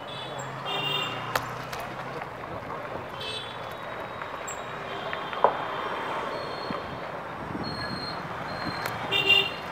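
Street traffic heard from a moving bicycle: a steady hiss of road and wind noise, with vehicle horns tooting briefly about a second in, at around three seconds, and again near the end. A passing motorbike engine hums early on, and two sharp clicks stand out, one near the start and one about midway.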